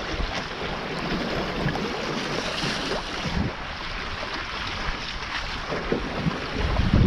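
Wind buffeting the camera microphone and water rushing along the hulls of a Taipan 5.7 catamaran under sail, a steady hiss with low gusty rumbles that swells briefly about three seconds in.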